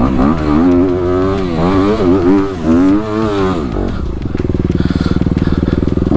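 Dirt bike engine revving, its pitch rising and falling again and again, then settling to a steady drone for the last couple of seconds.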